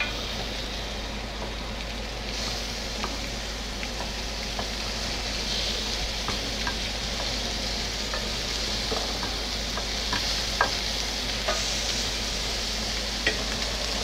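Marinated lamb chops sizzling on a hot ridged cast-iron grill pan, the sizzle stepping up and growing louder as more chops are laid down. Light clicks of metal tongs against the pan and meat come and go throughout.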